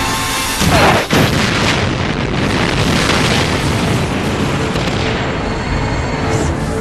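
Action-film sound effects: a loud boom with a sweeping, gliding sound just under a second in, followed by a dense, continuous rumbling mix with music underneath.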